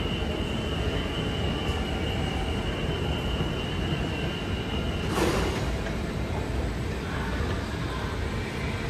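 Singapore MRT train running, a steady rumble as heard from inside the carriage, with a thin high steady whine over the first five seconds or so. A brief rush of noise comes about five seconds in.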